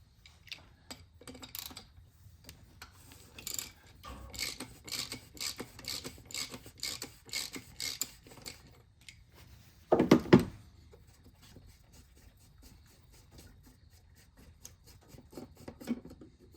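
Socket ratchet clicking in quick runs, about three clicks a second, as a 24 mm socket loosens the plastic oil filter housing cap on a Chrysler 3.6L V6, then a single loud knock about ten seconds in.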